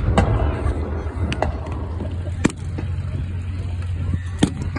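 Scattered blank rifle shots from a staged battle re-enactment: single sharp cracks at uneven intervals, the loudest near the end, over a steady low rumble.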